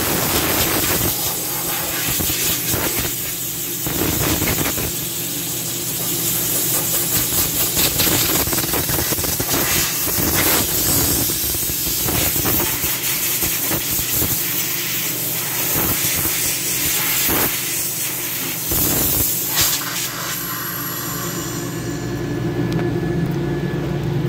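Compressed-air blow gun blasting dust out of an air compressor cabinet: a loud hiss in repeated bursts that swell and ease, over a steady low machine hum. The hiss thins out about 20 seconds in.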